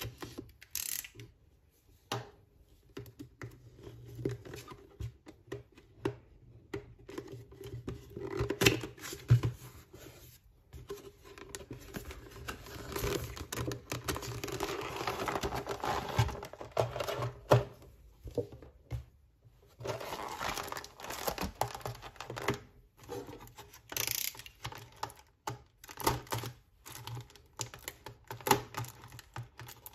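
A utility knife slits the tape on a cardboard figure box, then the cardboard flaps are opened and a clear plastic blister tray is pulled out and handled. Irregular crinkling, tearing, scraping and small taps.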